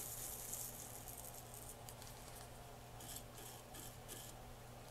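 Faint scrubbing of a flux brush on a circuit board, fading over the first second, then a few faint scratches near the middle, over a steady low hum.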